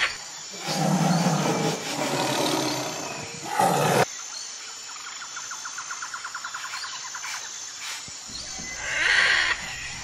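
Wild animal calls. A low growling call runs through the first few seconds and cuts off suddenly about four seconds in. A rapid trill of about seven pulses a second follows, then a short higher call near the end.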